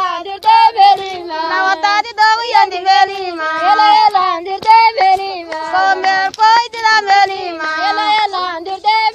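A high voice singing a song, holding and bending long melodic notes with a wavering pitch.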